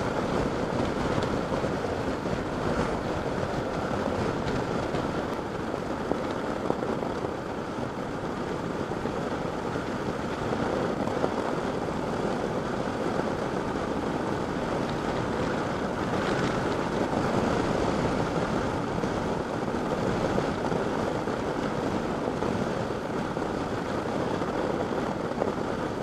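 Steady rush of wind and road noise from a Honda NC700X motorcycle cruising along at road speed, an even roar with no distinct engine note standing out.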